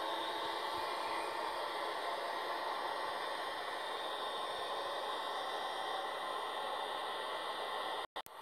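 Steady hiss of railway platform ambience, played back from a video and re-recorded, cutting out for a moment near the end.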